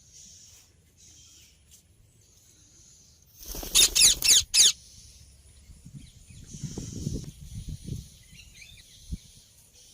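Rose-ringed parakeet giving four loud, shrill screeches in quick succession about a third of the way in. A low rumbling noise follows a few seconds later, over a steady high hiss.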